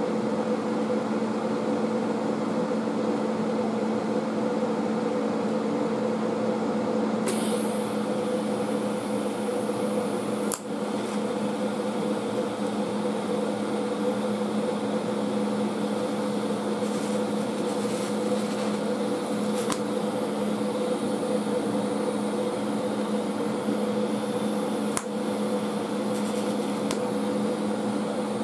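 Steady hum of a running welding machine. About seven seconds in, a thin hiss joins it as the arc is struck and a FAL rifle's steel gas plug is welded. A few light clicks come later.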